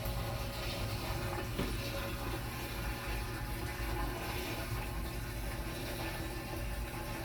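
Samsung washing machine running, with a steady rush of water and a low hum, and a brief click about one and a half seconds in.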